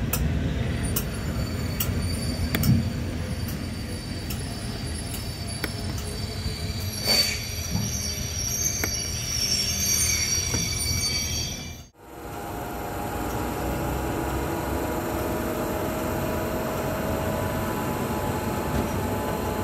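Class 86 electric locomotive running slowly along the platform: sharp clicks of wheels over the rail and high-pitched wheel squeal. About twelve seconds in, after a cut, a steady hum as the locomotive stands.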